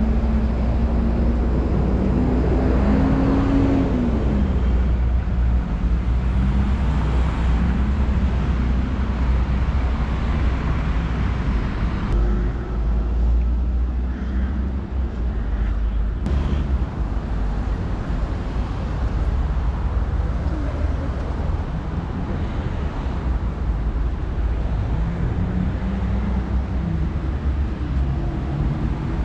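Road traffic: a motor vehicle's engine running close by over a steady low rumble, its pitch rising and falling near the start and again near the end.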